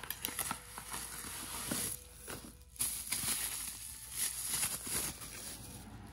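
Bubble wrap and box packaging rustling and crinkling in irregular handfuls as a stainless salt-and-pepper grinder is pulled from its box and unwrapped by hand.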